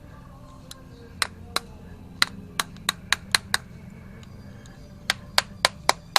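About a dozen sharp, irregularly spaced clicks or taps of small hard objects, in two clusters, over a low steady hum.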